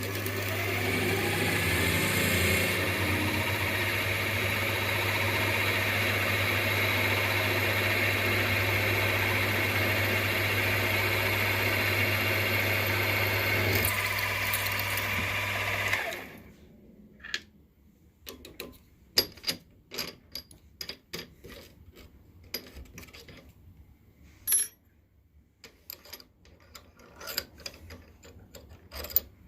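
Milling machine running steadily with a hum, switched off about sixteen seconds in. Light, scattered metallic clicks and knocks follow.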